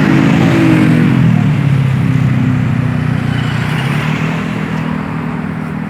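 Large bus's diesel engine running loud as it passes close, with tyre and road noise; its engine note drops about a second in, then holds steady.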